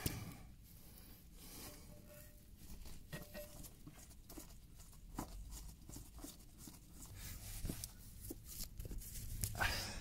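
Faint rustling and scattered light clicks and taps as gloved hands work a new spin-on oil filter, wrapped in a plastic bag, up through a tight gap toward its thread under the engine.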